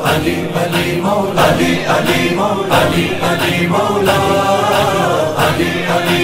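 Devotional vocal music: a chorus of voices chanting in praise of Ali, with sustained, wavering sung lines.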